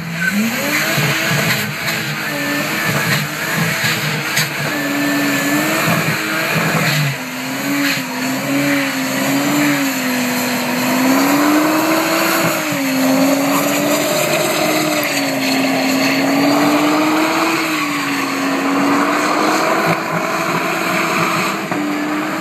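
Nissan Skyline R34 engine revved up hard at the start, then held at high revs through a burnout, its pitch wavering up and down as the rear tyres spin and squeal.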